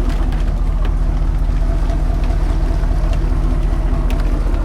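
Boat engine running with a steady low hum, with a few light clicks and knocks over it.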